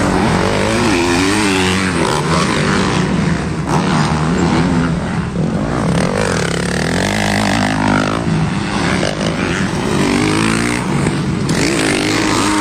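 Several MX1 motocross bikes racing, their engines revving up and down as they take the jumps, with overlapping engine notes rising and falling in pitch.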